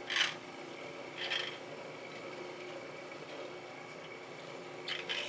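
A metal spatula scraping meat filling off a stainless steel tray in short strokes, once at the start, once about a second later and twice near the end, over a steady machine hum.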